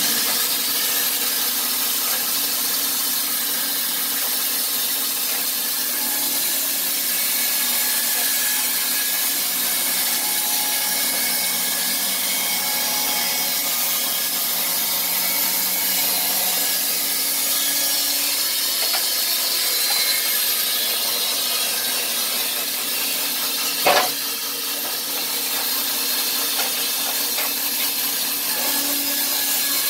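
Wood-Mizer LT15 portable band sawmill running and sawing through a log: a steady motor hum under the hiss of the band blade cutting wood. A single sharp knock sounds about three-quarters of the way through.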